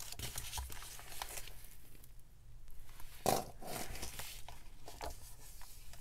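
Paper rustling as a tag and the stiff paper pages of a handmade junk journal are handled and turned, with a louder rustle about three seconds in.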